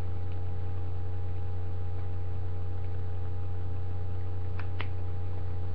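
Steady low electrical hum, mains-like, with faint steady higher tones over it. Two faint clicks come close together a little past four and a half seconds in.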